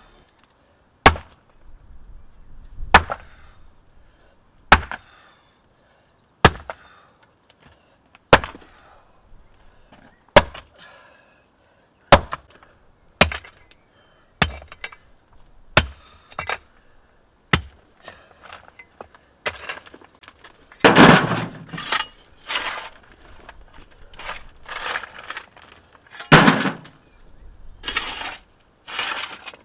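Sledgehammer blows breaking up a thin concrete footpath: single sharp strikes with a short ring, one every one and a half to two seconds. About two-thirds of the way through they give way to a quicker run of louder, rougher crunching blows as the concrete breaks apart.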